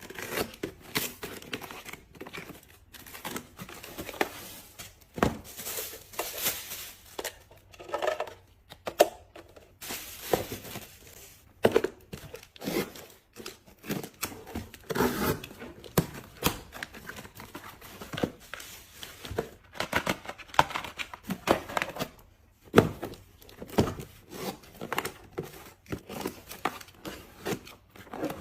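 Packaging being handled and opened by hand: plastic and paper crinkling and tearing, with irregular taps and knocks of objects being set down.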